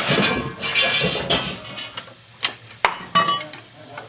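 Metal tools and parts clanking during hand work on the engine: a scraping, rattling stretch, then a few sharp knocks about two and a half to three seconds in, one with a short metallic ring.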